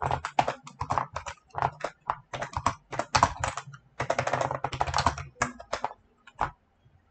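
Typing on a computer keyboard: fast runs of keystrokes in bursts, with a short pause about three and a half seconds in, thinning out and stopping near the end.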